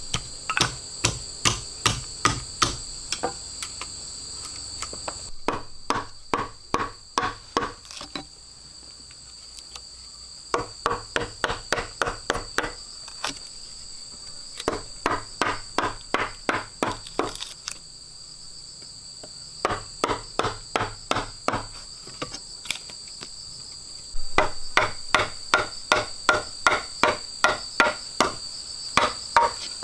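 Repeated hand-tool strikes on wood, about three a second, in runs of several seconds with short pauses between them. Steady insect buzzing in two high tones carries on underneath.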